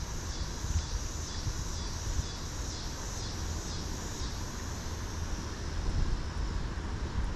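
Low, steady rumble of wind on the microphone, with insects trilling in a pulsing high chorus.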